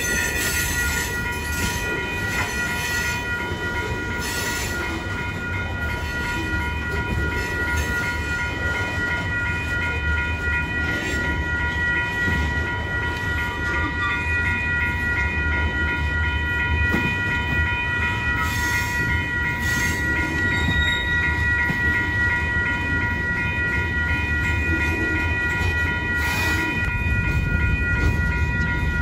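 Train rolling along the rails with a steady low rumble, a constant high-pitched ringing tone over it, and scattered clicks from the wheels.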